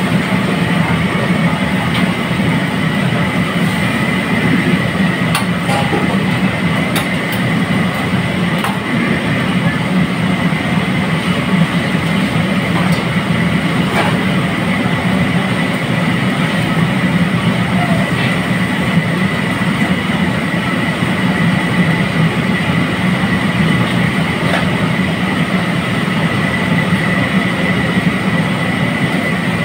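Commercial wok range running: the steady roar of its gas burner, with oil bubbling and sizzling in the wok and a steady whine from the burner or hood. A few faint clicks sound around the middle.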